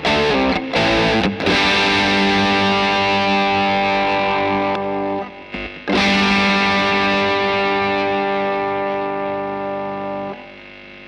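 Distorted electric guitar played through a DemonFx CK Compressor pedal: a few quick chord stabs, then two long chords left to ring. The second chord fades and stops near the end.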